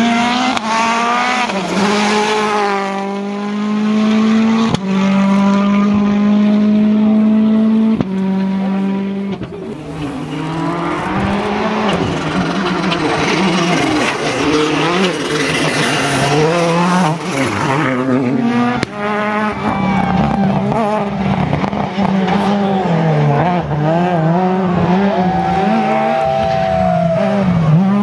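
Rally cars driven flat out on a stage: engines rev up through the gears and drop sharply at each shift, over and over, with abrupt jumps where one pass cuts to the next.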